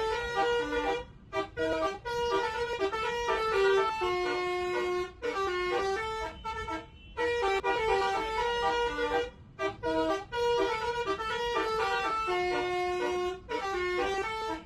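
Bus telolet horn, a set of air horns playing a tune in quick stepped notes, with a few short breaks between phrases.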